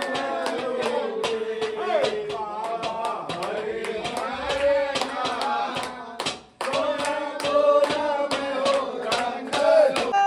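A song with singing over a steady beat of sharp claps, with hand clapping along; the sound drops out for a moment about six seconds in.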